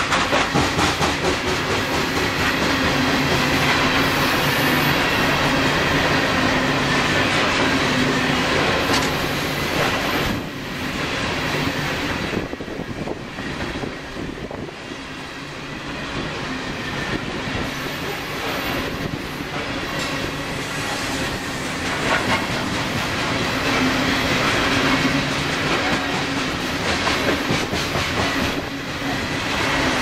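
Hopper cars of a long CSX coal train rolling past close by: a steady loud noise of steel wheels on the rails that eases for several seconds around the middle, then builds again.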